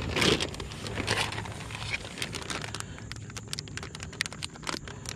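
A plastic bag of soft-plastic fishing lures crinkling and rustling as it is pulled out and handled, a steady run of small crackles and clicks.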